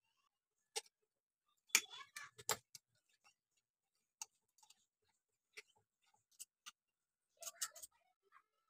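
Metal forks clicking and scraping against a ceramic plate while shredding boiled chicken, in irregular sharp ticks with a busier flurry about two seconds in and another near the end.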